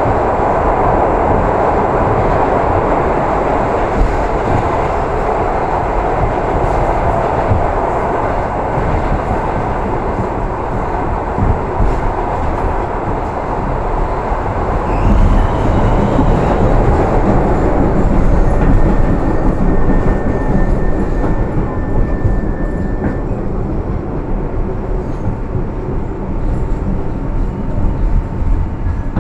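R62A subway train running between stations, heard from inside the car: a steady rumble of wheels on rail with some clickety-clack. Thin whining tones come in during the second half, a higher one and then a lower one near the end.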